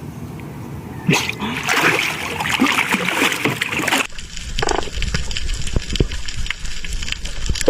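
Water splashing and sloshing at the surface. About four seconds in, it turns suddenly muffled, with a low rumble and scattered clicks, as the microphone goes under water.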